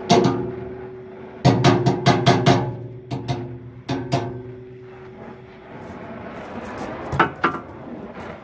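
Hammer blows on steel, each strike leaving a ringing metallic tone. There is one blow at the start, a quick run of about seven blows soon after, a few more a second or two later, and a pair near the end.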